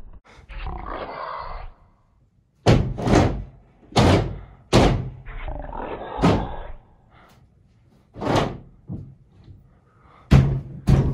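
Heavy bangs on a door, about nine of them at irregular spacing, with two stretches of rough, rasping noise, one just before the bangs begin and one partway through.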